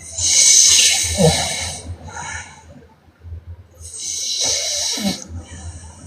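A woman snoring: two loud, hissing snoring breaths about four seconds apart. Each ends in a short pitched snort that rises slightly, and a softer breath follows each one.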